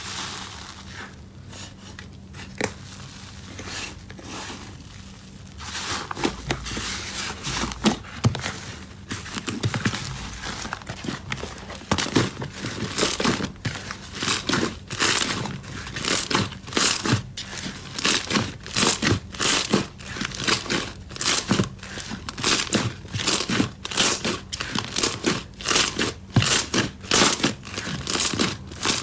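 Slime being worked, crackling and crinkling. It starts quieter, then from about the middle settles into a steady rhythm of about two crackly squelches a second.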